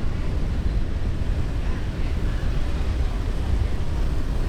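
Wind buffeting the microphone and road noise on a moving motorbike, a steady low rumble with no clear breaks.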